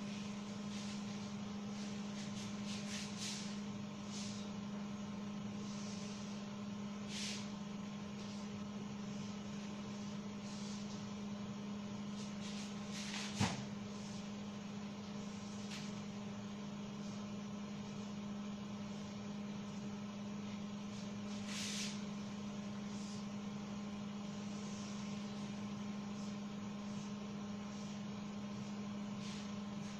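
A steady low hum, with a few brief rubbing strokes of a duster and marker on a whiteboard and a single sharp knock about thirteen seconds in.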